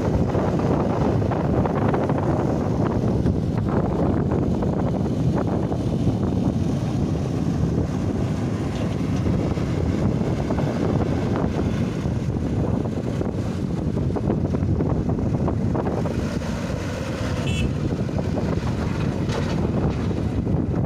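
Wind buffeting the microphone over a steady low rumble, with a faint brief high squeak about seventeen seconds in.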